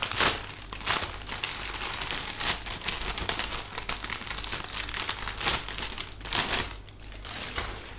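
Thin clear plastic bags around model-kit runners crinkling as the bagged runners are handled and shifted, an irregular crackle with louder bursts that eases off near the end.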